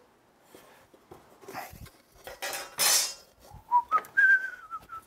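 Wooden knocks and a clatter as a board and a large steel square are handled and set down on a workbench. Near the end a man whistles a short note that slides up and then wavers on one pitch.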